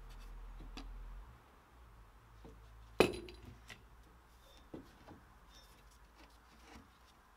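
Light clinks and clicks of a power steering return pipe and hose being handled and fitted, with one sharp metallic clink about three seconds in and a few softer taps after it.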